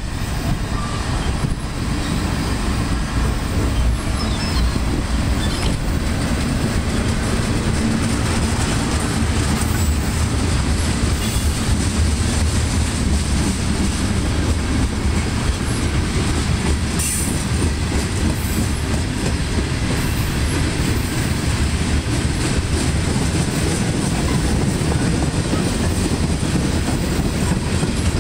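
Freight train tank cars rolling past close by: a steady rumble and clatter of steel wheels on the rails.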